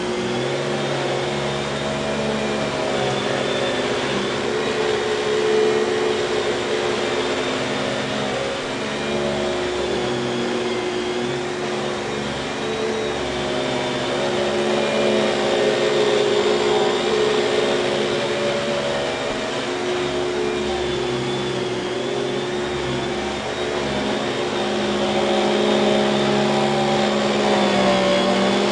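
1995 Kenmore canister vacuum cleaner running on its dual-stage Lamb motor, a steady whirring hum whose pitch and loudness waver as the airflow changes.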